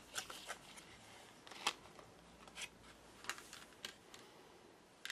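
Small parts and packaging being handled on a workbench: a scattering of faint clicks and light rustles, with one sharper click about one and a half seconds in.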